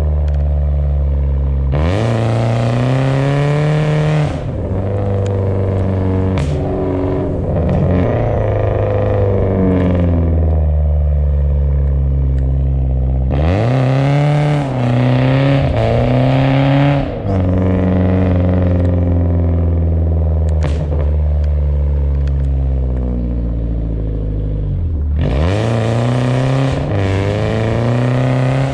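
BMW car engine revving hard in three sharp surges about eleven seconds apart, with a hiss of noise over each surge, dropping back between them to lower revs that slowly sink, as the car is driven sideways on ice.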